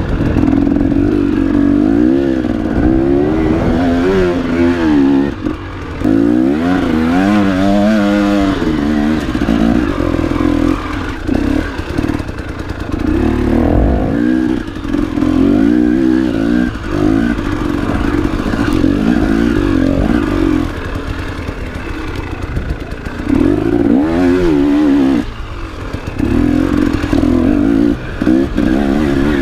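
Enduro motorcycle engine under hard riding, its revs rising and falling over and over with short dips in loudness as the throttle is worked, with clattering from the bike.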